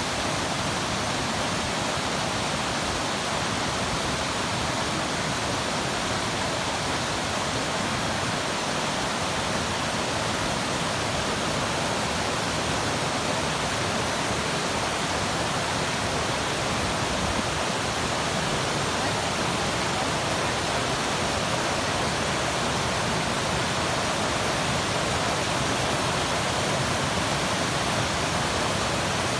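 Waterfall pouring, a steady, even rushing of falling water with no change in level.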